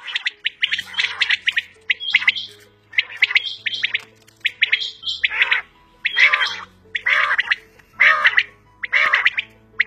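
Quail (batair) calling over and over, about one call a second, each call a quick run of sharp, clipped notes.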